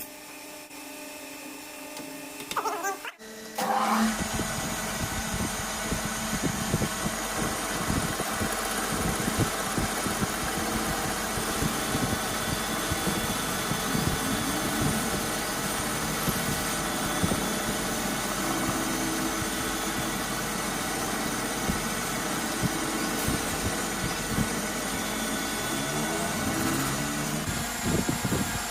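Metal lathe running. About four seconds in it gets louder, a steady machining noise with a fast, fine rattle.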